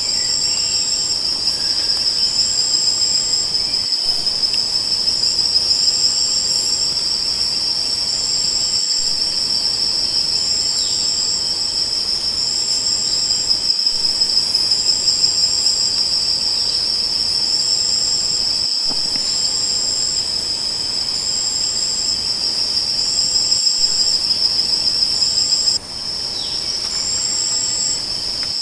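Crickets chirping in a steady high-pitched chorus, with a second, higher insect call repeating in short pulses about once a second. The sound briefly cuts and dips near the end.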